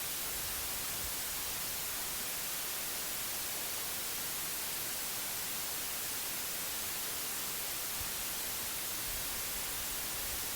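Steady white noise: an even hiss that does not change.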